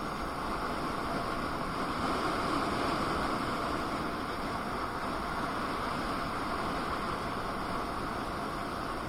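Steady rushing noise of a KingSong KS18S electric unicycle being ridden: wind and road noise from the moving wheel, slightly louder a couple of seconds in.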